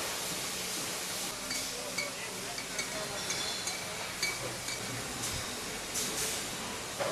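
Beer bottling line running with a steady machine hiss, and glass bottles clinking against each other on the conveyor several times at irregular intervals.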